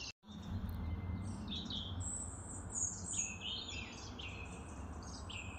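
Songbirds chirping and singing in quick, varied phrases over a low steady background rumble. The sound cuts out completely for a moment at the very start.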